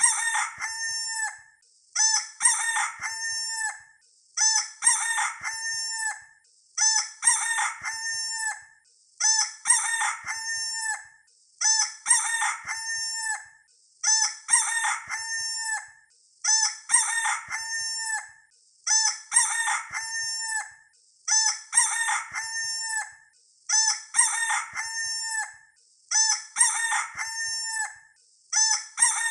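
Rooster crowing, the same crow repeated over and over about every two seconds as a looped sound effect.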